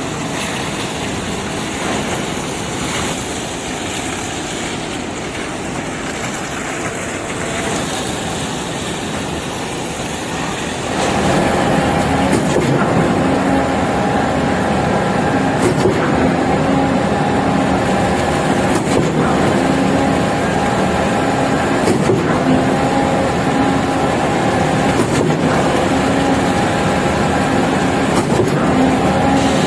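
Heavy concrete-placing machinery, such as a ready-mix truck or concrete pump, running steadily. It grows louder about eleven seconds in, when a steady humming engine tone joins the noise.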